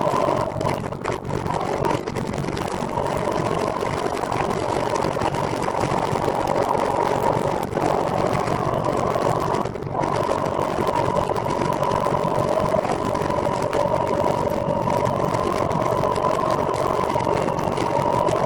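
A recumbent trike in motion, giving a steady whirring hum with a rushing noise behind it. The hum drifts slightly in pitch and dips briefly about ten seconds in.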